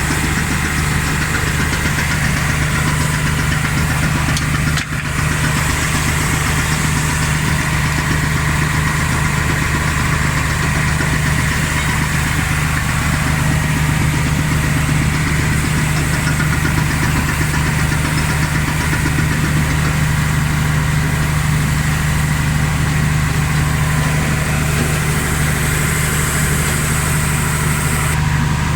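IVECO truck's diesel engine idling steadily, with a brief dip in level about five seconds in.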